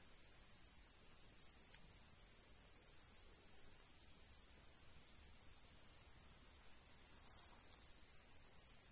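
Crickets chirping in an even rhythm, about two and a half chirps a second, over a continuous high-pitched hiss.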